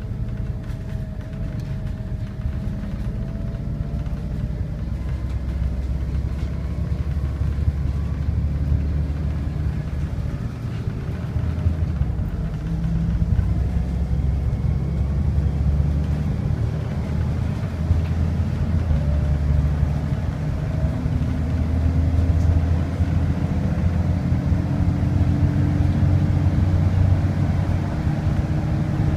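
Volvo B7RLE bus's six-cylinder diesel and ZF automatic gearbox under way, heard from inside the passenger saloon: a steady low engine drone with a gearbox whine that slowly climbs in pitch over the second half.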